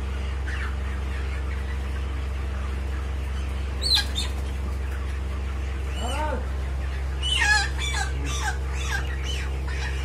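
Broiler chickens clucking and squawking. One sharp squawk comes about four seconds in, then a run of calls follows between about six and nine seconds, over a steady low hum.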